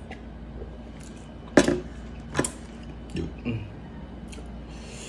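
Close-miked drinking and mouth sounds from someone sipping water out of a glass mug: a sharp click about a second and a half in, another just under a second later, then two soft, low gulps.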